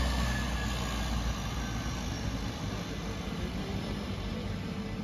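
Twin-turboprop de Havilland Canada DHC-6 Twin Otter's engines running as it taxis away, the sound fading over the first couple of seconds and then holding steady.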